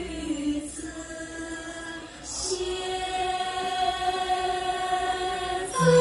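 Slow backing music for a Chinese classical dance, made of long held notes in steady chords. It is quieter at first, swells louder about halfway through, and swells again with a new chord near the end.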